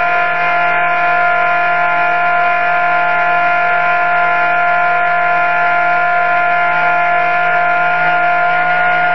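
Home-built CNC milling machine cutting aluminium with a small tungsten-carbide end mill. The machine gives a steady whine made of several held tones over cutting noise.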